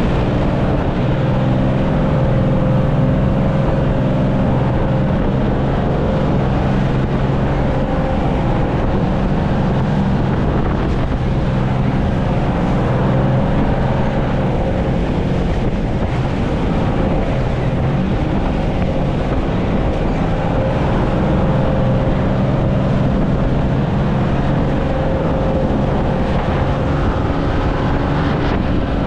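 Boat engine running steadily underway, with wind buffeting the microphone.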